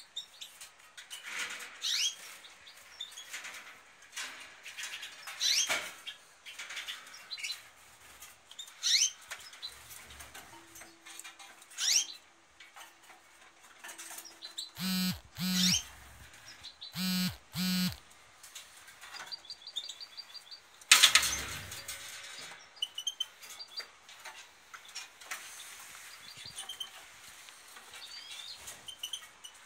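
Caged European goldfinches and canaries calling, with short rising chirps every few seconds. A few louder buzzy bursts come in the middle, and a loud rustle about two-thirds of the way through.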